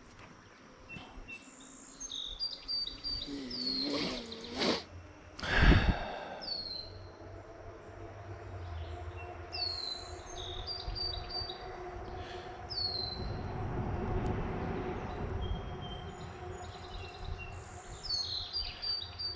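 Small birds chirping over and over, short downward-sweeping chirps. About six seconds in comes one sharp, loud knock, and a faint steady hum runs under the middle part.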